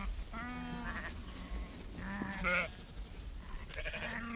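Sheep bleating: three quavering bleats, about half a second in, around two and a half seconds in, and near the end.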